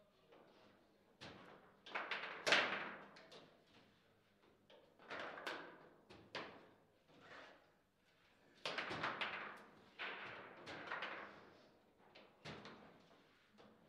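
Foosball table in play: irregular sharp knocks and bangs of the ball, plastic figures and rods, coming in quick clusters with short pauses between, the loudest about two and a half seconds in.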